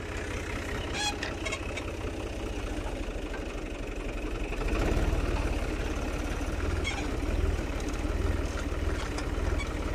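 Ghazi tractor's diesel engine running steadily while pulling a disk harrow; about halfway through its low throb grows louder. A few sharp clicks come about a second in and again near the end.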